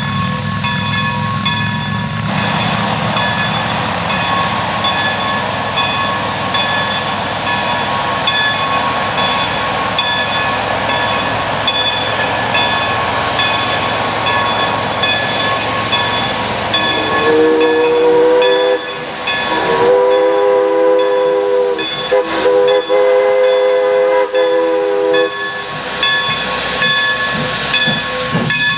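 New Hope & Ivyland No. 40 steam locomotive working slowly past with a steady hiss of steam. About two-thirds of the way in, its chime whistle blows the grade-crossing signal: long, long, short, long. A grade-crossing signal bell rings throughout.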